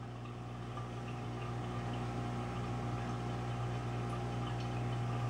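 Reef aquarium equipment humming steadily, with a faint hiss of moving water; it grows slightly louder over the few seconds.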